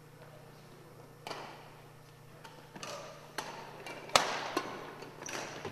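Badminton rally: racket strings striking a shuttlecock, a sharp crack every second or so that echoes around the gymnasium. The hardest hit, an overhead stroke, comes about four seconds in.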